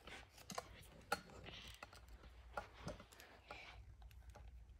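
Faint, scattered clicks and taps of an articulated plastic dinosaur figure being handled, its jaw and limb joints worked by hand.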